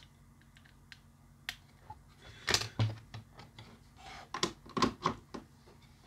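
Clicks and taps of a micro USB plug being fitted into the power socket of a bare USB cable-tester circuit board, a few light ticks at first, then several louder clicks in the second half.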